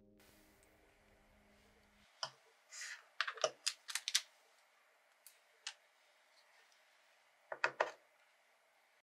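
Clear acrylic character stand being handled: small sharp clicks and taps of hard plastic on plastic, with a brief rustle, in a cluster about three to four seconds in and again near the end.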